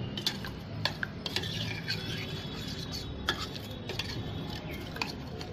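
Steel spoon stirring milk with lumps of ice in a steel bowl: irregular clinks and scrapes of the spoon against the bowl.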